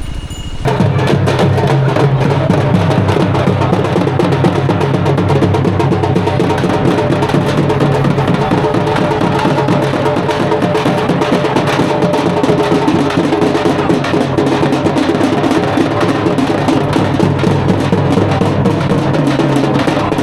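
Background music with prominent drums, coming in abruptly just under a second in and playing on loudly.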